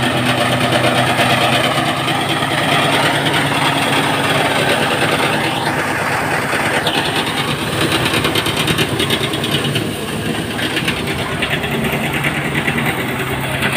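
Portable rice thresher running steadily on its small engine, threshing rice stalks.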